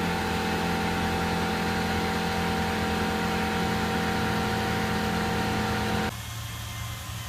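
Tormach PCNC770 CNC mill running a cut in 6061 aluminium: a steady machine sound of several constant tones over a hiss. It drops off sharply about six seconds in.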